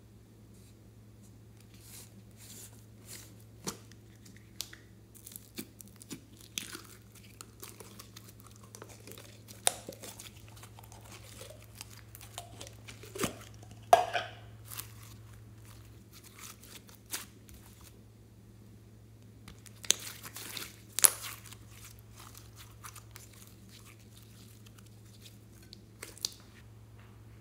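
Hands handling a red slime and its plastic tub: scattered clicks, crackles and crinkling from the container and the sticky slime as it is pulled out, squeezed and pressed down, with a few louder snaps.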